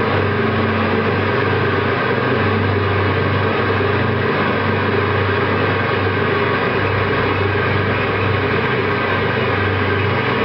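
Loop-based ambient music from guitar and electronics: a dense, steady wash of noisy drone with a low sustained hum that dips and swells a few times.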